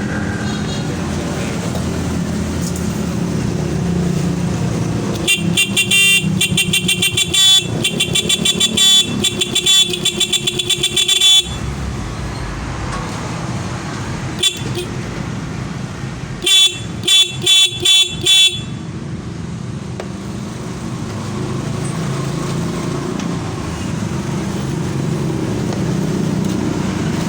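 Stock single horn of a Yamaha Mio Sporty scooter beeping in a fast string of short blasts for about six seconds, then five more quick blasts a few seconds later, as it is tested directly. The horn sounds fine, which points the no-horn fault at the handlebar switch.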